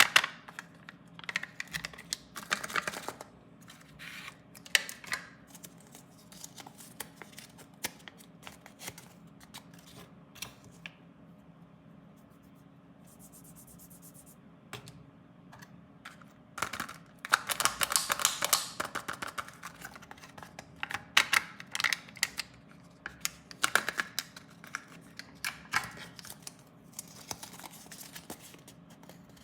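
Candy and toy packaging being opened and handled: a run of sharp plastic clicks and taps with short bursts of crinkling and tearing, busiest about two thirds of the way through.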